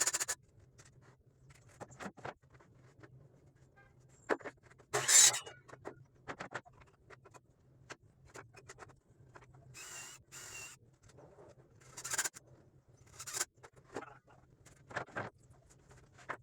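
Intermittent short scrapes, rubs and knocks, as of wood being handled and worked by hand, over a faint steady low hum. The loudest stroke comes about five seconds in, and two brief noisier bursts come around ten seconds.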